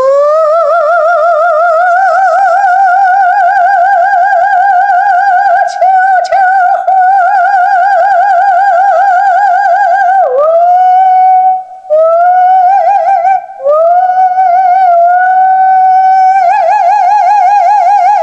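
A woman singing long, high held notes with wide vibrato, a vocal demonstration of the light 'whispered' approach to high notes. One note is held for about ten seconds, rising slightly in pitch. It then breaks off and is followed by several shorter held notes.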